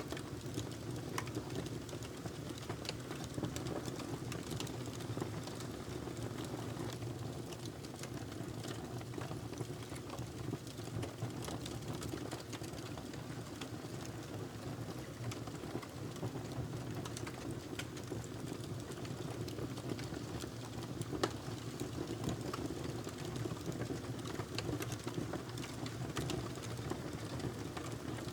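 Wood fire burning in a fireplace, a steady low rush of flames with frequent small crackles and pops.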